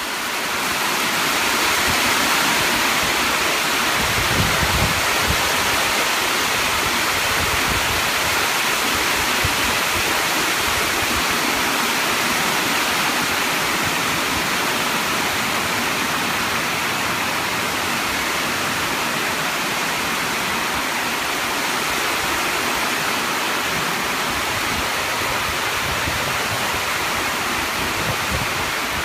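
Heavy rain pouring down onto a lake's surface, a dense, steady hiss that swells over the first couple of seconds and then holds.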